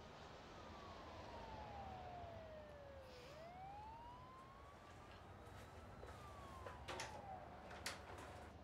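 Faint siren wailing in slow glides: it falls for about three seconds, rises again, then starts falling once more. A few light knocks come near the end.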